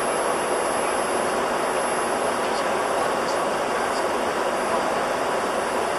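Steady flight deck noise of an Airbus A300-600R in descent: a constant rush of airflow and engine noise with the engines at low power.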